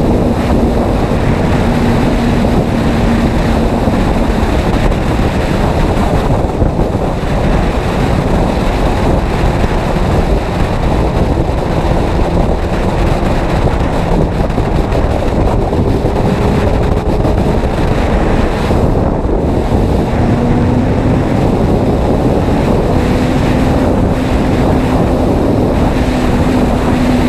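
Heavy wind rushing over the microphone of a Suzuki Hayabusa sport bike at motorway speed. The inline-four engine is a faint steady hum underneath, its pitch climbing slowly through the middle.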